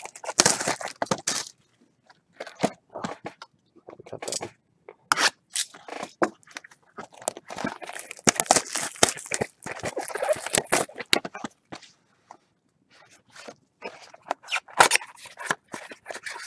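Cardboard trading-card mini-box and its packs being handled and opened: irregular scraping, crunching and tearing of cardboard and wrappers, with a few sharp clicks.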